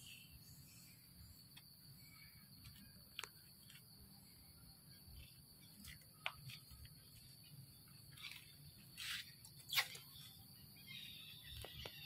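Faint, steady insect drone with a few scattered short clicks, the loudest near ten seconds in.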